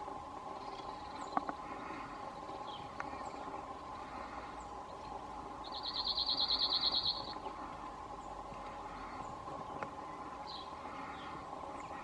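Male cirl bunting singing its song: one rapid, dry trill of evenly repeated notes on a single pitch, about a second and a half long, midway through.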